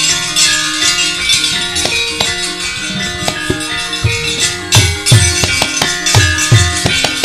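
Javanese gamelan playing: ringing metallophone notes over a bright shimmer, with deep drum strokes coming in strongly about halfway through, two or three a second.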